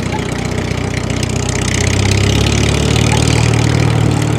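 The small engine of a DIY mini tractor is running with a fast, steady beat. It gets louder and heavier about halfway through, as if under more throttle or load.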